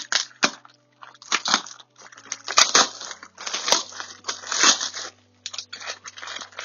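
Packaging crinkling and rustling in irregular bursts as it is handled and pulled open by hand.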